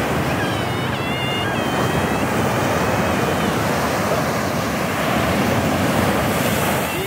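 Sea surf breaking and washing up onto a sandy beach at close range, a steady rush of water.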